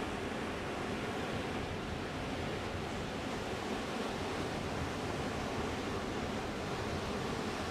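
Ocean surf washing steadily, an even hiss of breaking waves with no single wave standing out.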